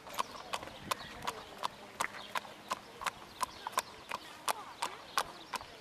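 Thoroughbred horse's hooves clip-clopping on asphalt at a trot, an even rhythm of sharp clicks about three a second.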